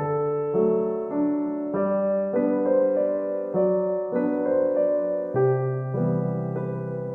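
Soft background piano music, slow chords struck about every half second and left to ring.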